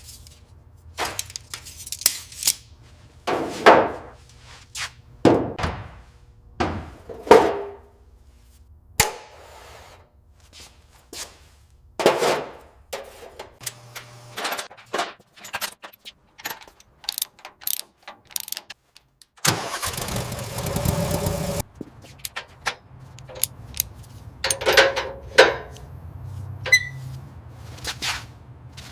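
Workshop sounds of car restoration work: a string of irregular metallic clanks and knocks, some ringing briefly, over a low hum, with a steady rushing noise lasting about two seconds some twenty seconds in.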